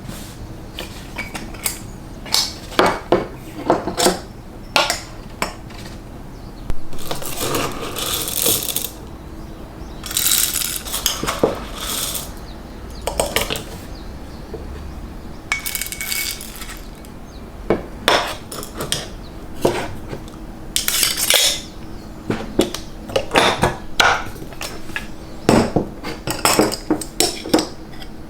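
Dishes and utensils clinking and knocking against each other in an irregular run of handling sounds, broken by a few short hissing stretches.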